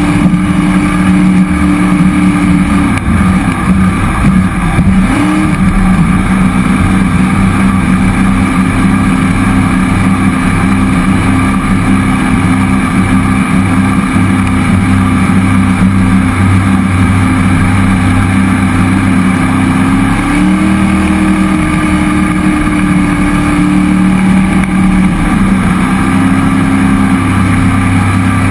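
Cammed 5.3-litre LS V8 in a jet boat running under way at a steady speed. The engine note dips and recovers about three seconds in, then rises and falls again a few times past the twenty-second mark as the throttle changes.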